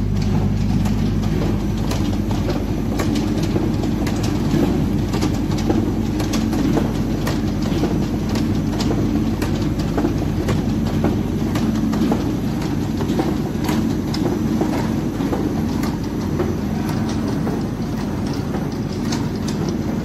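Automatic vertical packing machine for washing powder running: a steady low machine hum with constant irregular rattling clicks.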